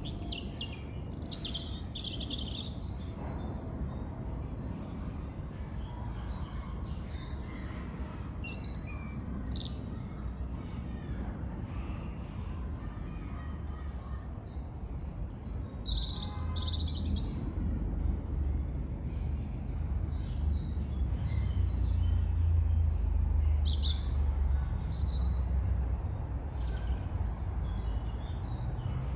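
Several small birds chirping and trilling in a wood, many short high calls overlapping. Under them runs a steady low rumble that swells from about halfway through.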